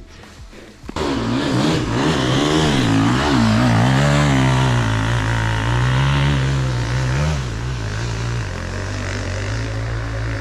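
KTM 450 SXF's single-cylinder four-stroke motocross engine, close by, comes in suddenly about a second in and is revved up and down as the bike works a steep climb, then holds a steadier, lower note near the end.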